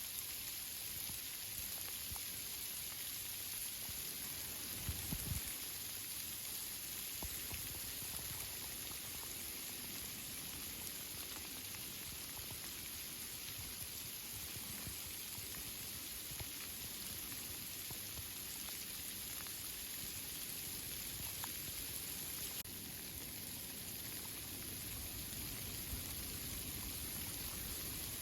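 Steady rain falling on tree foliage: an even hiss with scattered single drops ticking, and a brief low rumble about five seconds in.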